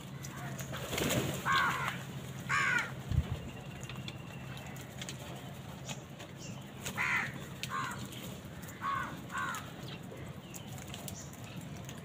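A flock of house crows feeding and calling, with short harsh caws coming singly and in pairs, about six in all, bunched early and again past the middle. A low hum in the background stops with a dull thump about three seconds in.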